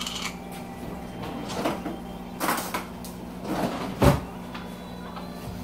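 Soft handling noises as items are moved about a kitchen counter, with one sharp knock about four seconds in.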